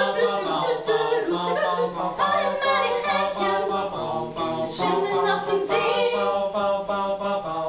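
Several voices singing together a cappella, with no instruments.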